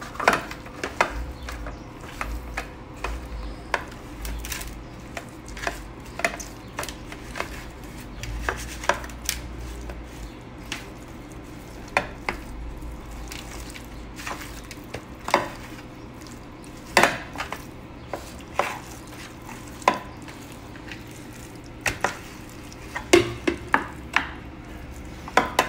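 Raw seasoned chicken pieces being mixed by hand in an aluminium baking tray: irregular sharp knocks and clacks as the pieces and fingers hit the metal tray, over a faint steady hum.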